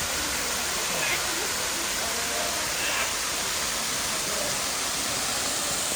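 Waterfall rushing with a steady, even roar of falling water. A few faint, brief pitched sounds rise above it about one, two and three seconds in.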